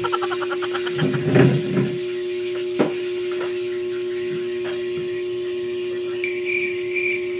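A steady electrical hum throughout, with a few knocks and a short murmur in the first two seconds. From about six seconds in, a high chirping starts, repeating about three times a second.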